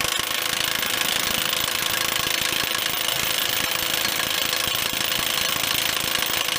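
Four-stroke gas-powered post driver running and hammering a post into the ground with a rapid, steady pounding.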